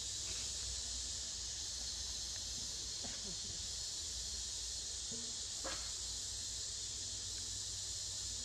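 Steady high-pitched hiss of a forest insect chorus, with a faint tick or two.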